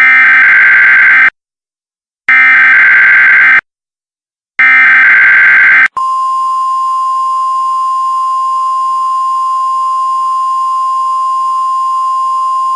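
Emergency Alert System signal: three loud bursts of harsh, buzzing digital header tones, each about a second long with short gaps between them. About halfway in comes a steady, single-pitch alert tone that holds unbroken.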